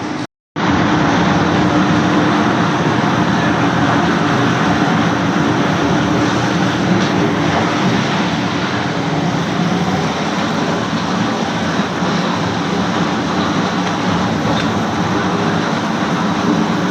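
Wood chip production line machinery (log debarker, disc chipper and vibrating screen) running steadily, a dense continuous mechanical noise with a steady hum. It drops out for a moment about half a second in, then carries on unchanged.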